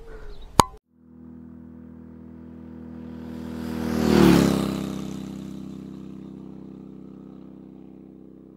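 A sharp click, then a vehicle passing by. Its engine hum and tyre hiss swell to a peak about four seconds in, the pitch drops as it goes past, and the sound fades away.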